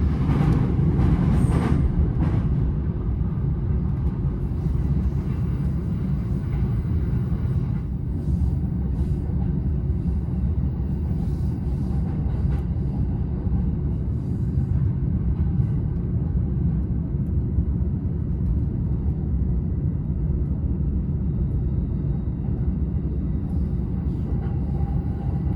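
Tōkaidō Line local train running between stations, heard from inside the passenger car: a steady low rumble of wheels on rails, with a few faint clicks midway.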